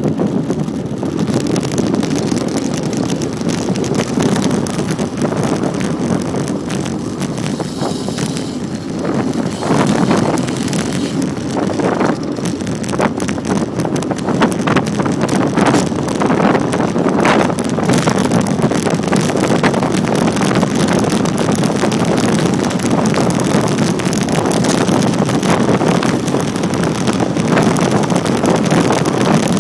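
Steady rush of wind over the microphone during a fast road-bike descent, with brief louder gusts now and then.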